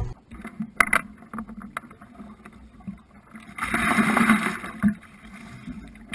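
A plastic bucket of water emptied out in one splashing rush lasting about a second, the loudest sound here. A single sharp knock comes just before, near the start, among a few light clicks.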